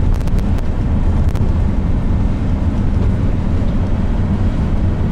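Steady low road rumble and wind noise of a car driving along a road, with a few faint clicks in the first second and a half.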